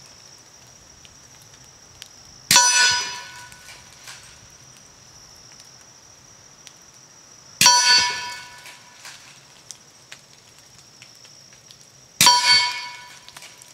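Three subsonic 300 AAC Blackout bullets strike a steel silhouette target about five seconds apart. Each hit is a sharp clang that rings on for about a second.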